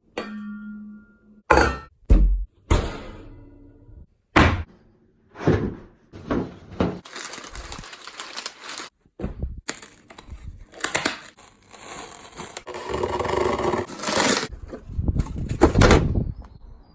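A sound-designed explosion sequence built from iPhone-microphone recordings: a brief tone at the start, a run of sharp impacts and cracks, then crackling, breaking debris noise with sudden cut-offs, and a heavy low rumble near the end.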